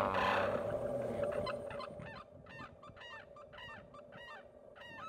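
Sarus crane calling: a rapid run of short, honking, trumpet-like calls, about three a second.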